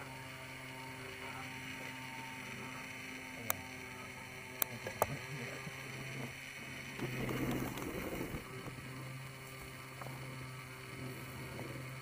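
A steady low hum, with a few sharp clicks around the middle and a brief louder, noisier stretch soon after them.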